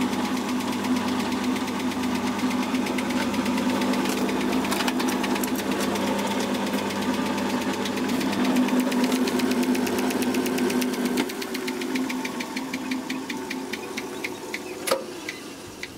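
Homemade shredder's electric motor running with a steady hum and a fast, regular rattle from its rough shaft bearings, a reworked AC compressor idler pulley bearing. About eleven seconds in the power is cut: the hum stops and the shredder coasts down, its rattle fading, with one sharp knock near the end.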